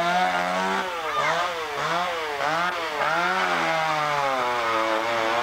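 Chainsaw running as it cuts into wooden furniture. About a second in, its engine pitch rises and falls about twice a second for a couple of seconds, then holds steadier.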